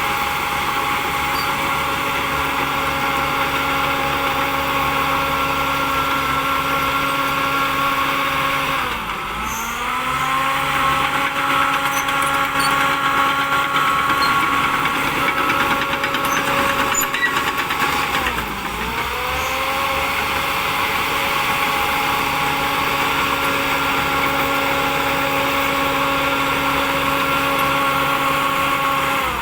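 Shantui DH10B2 bulldozer's diesel engine running under steady throttle. Twice the engine speed drops sharply and climbs back within about a second.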